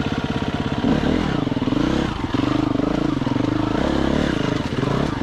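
KTM enduro motorcycle engine running with the throttle worked on and off, its pitch rising and falling repeatedly at low speed, with a couple of short knocks of the bike over stones.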